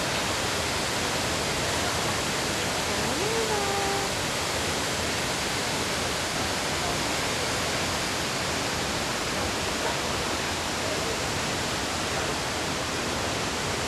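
Multnomah Falls pouring down: a steady, even rush of falling water. A short faint tone slides up and holds about three seconds in.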